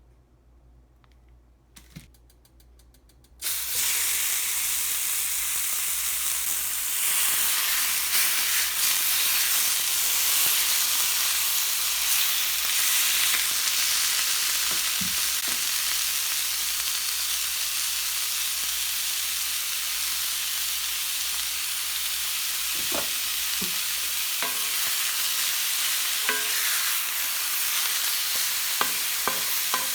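Food sizzling in a hot pan, starting suddenly a few seconds in and running steadily, with a few light knocks near the end.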